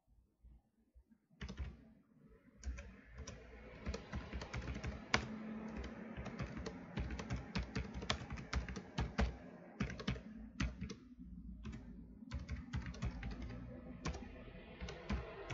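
Typing on a computer keyboard: a fast run of key clicks starting about a second and a half in, broken by a couple of short pauses.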